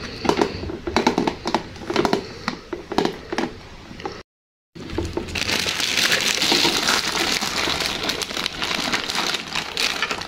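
Hard plastic toy parts clicking and knocking together as a canopy is fitted onto its pole. After a short break about four seconds in, a clear plastic bag crinkles steadily as toy pieces are pulled out of it.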